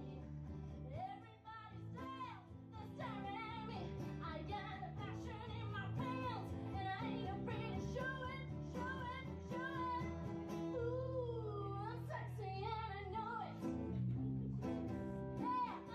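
Music with voice-like melodic lines gliding up and down in pitch over sustained low held notes.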